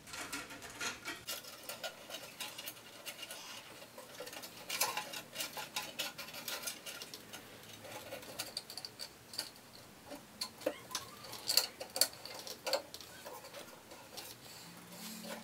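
Light, irregular clicking and ticking as a thin diamond band saw blade is worked by hand over the wheel and guides of a Gryphon C-40 band saw, the blade and plastic parts knocking together.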